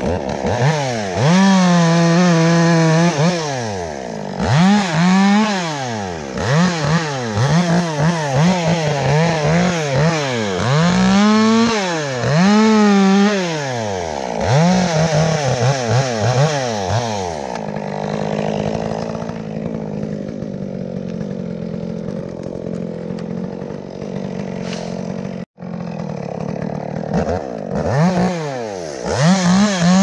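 Small two-stroke top-handle chainsaw revving up and dropping back again and again as it cuts into the wood. Roughly halfway through it settles to a steadier, lower running for about ten seconds, then revs up again near the end.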